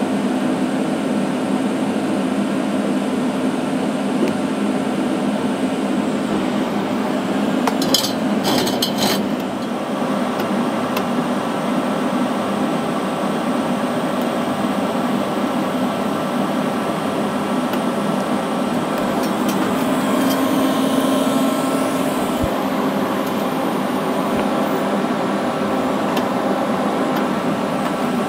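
TIG welding a round seam on a steel tube: the steady buzzing hiss of the arc together with the hum of the welding equipment, with a few sharp clicks about eight seconds in.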